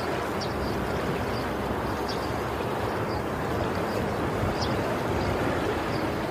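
Steady road and engine noise of a car on the move, heard from inside, with a few faint high chirps every couple of seconds.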